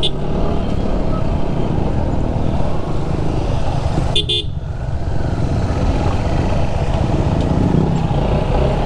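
Motorcycle being ridden through traffic: a steady engine drone with heavy wind noise on the helmet microphone. A short vehicle horn toot about four seconds in.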